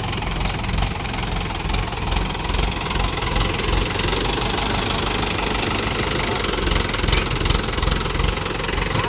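Diesel engine of heavy earthmoving machinery running steadily, with bunches of short sharp clicks over it.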